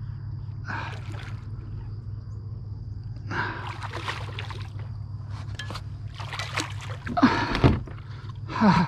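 Water splashing and dripping as a hooked redfish thrashes at the surface beside the kayak, in several short bursts with the loudest two near the end, over a steady low hum.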